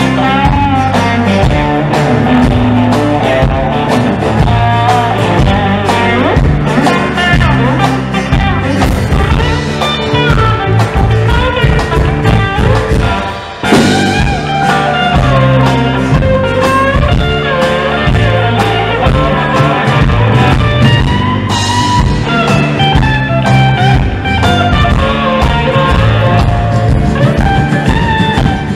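Live southern roots rock band playing an instrumental passage: a Telecaster-style electric guitar over a drum kit. There is a short drop about halfway before the band comes back in.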